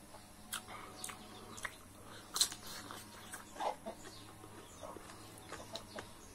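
Close-up eating sounds: a raw green king chilli being bitten and chewed, a scatter of short sharp crunches and mouth clicks, the loudest about two and a half seconds in.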